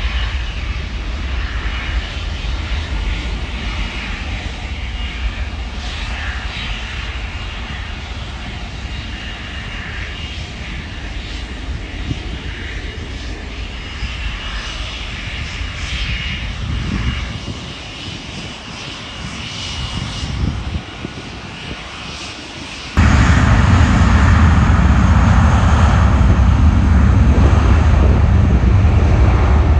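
Twin-engine airliner's jets at takeoff power: a steady rush with a high whine, slowly fading as the plane climbs away. About 23 seconds in, a cut brings a much louder, closer jet sound from a Cessna 560XL Citation XLS business jet's turbofans on the runway.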